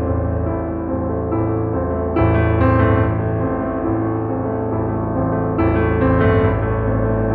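Background piano music, slow sustained chords with a new chord struck every second or two.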